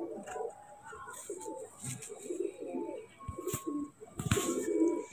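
Domestic pigeons cooing over and over, with a few sharp knocks about three and a half and four and a half seconds in.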